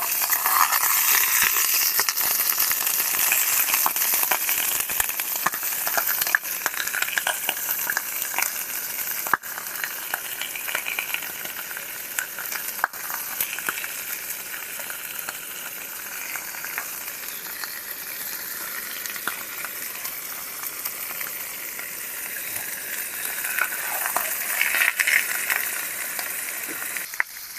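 Food frying in hot oil in a pan, a dense sizzle with sharp crackles that starts suddenly loud and settles to a steadier, quieter sizzle.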